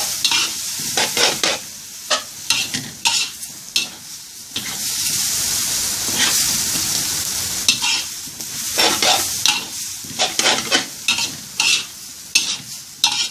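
Instant noodles with kale and bean sprouts stir-frying in a large wok: a steady sizzle, broken by quick scrapes and clinks as a metal spatula tosses the noodles against the pan. Near the middle there is a longer stretch of plain sizzling.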